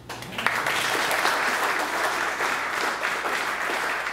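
Audience applauding, many people clapping together. It starts suddenly and keeps up steadily.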